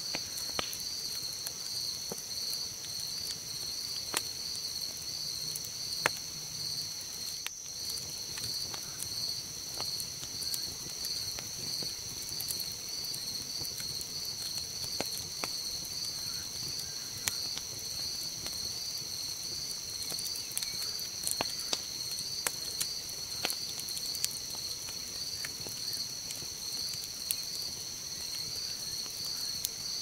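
Night chorus of crickets: a high, evenly pulsing trill over a steady higher-pitched drone, with small crackles and pops scattered throughout from a campfire burned down to glowing embers.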